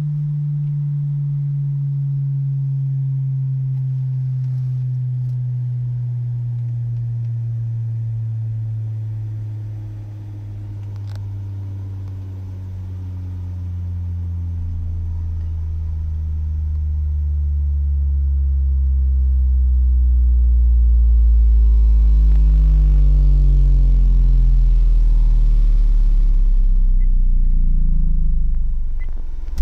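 A subwoofer test-tone sweep gliding steadily down from 150 Hz to 20 Hz through a sealed box with an NVX VCW122 subwoofer and Earthquake Sounds Slaps M-12 passive radiators, heard inside the car cabin. The tone grows louder and picks up overtones in its lower part, peaking around 47 Hz, the box's strongest frequency, then cuts off at 20 Hz just before the end.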